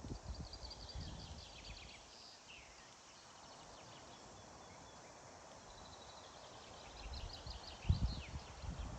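Songbirds singing in short trills and chirps, with a few quick downward-sweeping notes. Irregular low rumbling noise comes and goes near the start and again near the end.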